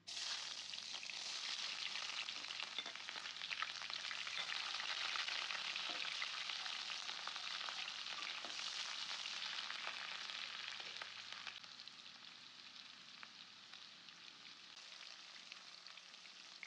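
Sliced red onion hitting hot cooking oil in a frying pan and sizzling hard, with a spatula stirring through it. The sizzle starts suddenly and eases off over the last few seconds.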